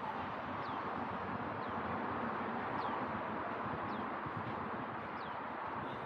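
Steady outdoor background rush, with a bird giving a short, high, falling chirp about once a second.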